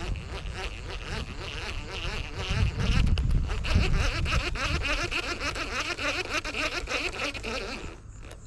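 Continuous chirping of many small animals in the open, with low rumbling on the microphone, both dropping away near the end.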